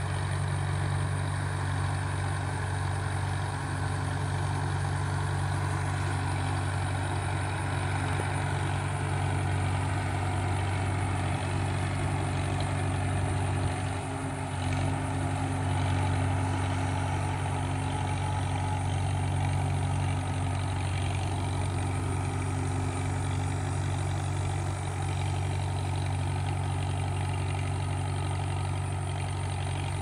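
1941 Farmall H tractor's four-cylinder engine running steadily while the tractor is driven slowly across the grass.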